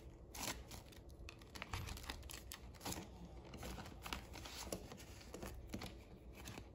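Paper banknotes rustling and a clear plastic cash envelope crinkling as bills are handled and slid into it, in short soft scattered rustles.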